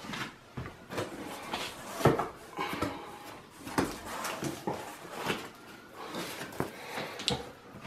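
Cardboard box flaps being folded open and a foam packing sheet lifted out, making an uneven run of scraping, rustling and soft knocks.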